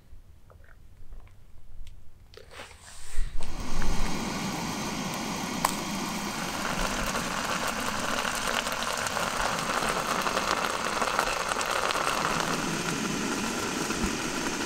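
Portable gas canister camping stove burner running with a steady hiss under a steel mug. Before it comes in, suddenly about three seconds in, there are a few soft knocks, and a couple of loud bumps come right as it starts.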